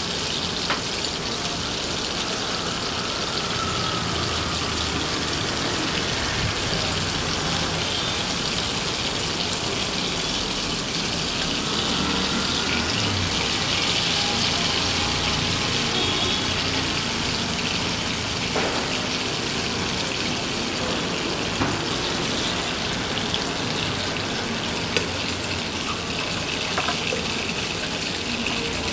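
Beef steak frying in butter in a nonstick pan: a steady sizzling hiss with occasional small pops and crackles.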